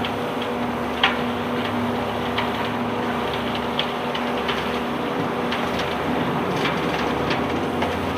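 Unloading machinery on a self-unloading barge running with a steady hum, while irregular clicks and knocks of cargo clatter over it, the sharpest about a second in.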